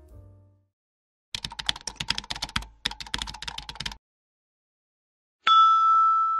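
Computer-keyboard typing sound effect: a fast run of key clicks lasting about two and a half seconds with a brief break midway. After a pause it is followed by a single bright chime ding that rings on steadily. Before this, the last note of piano music fades out at the start.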